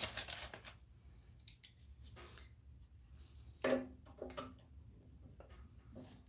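Faint small clicks and snips of hand cutters working at a thick plastic zip tie, with a brief low voice sound about two-thirds of the way in.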